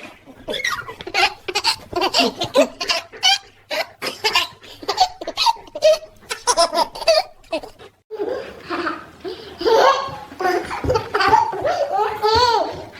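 A baby laughing in quick bursts of giggles, breaking off briefly about eight seconds in, then laughing on.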